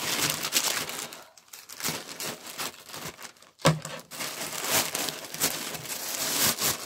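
Plastic packaging crinkling and rustling as the bag and the folded thermal window mats inside are lifted and handled, in uneven bursts with two short lulls. There is one sharp, loud crackle just past halfway.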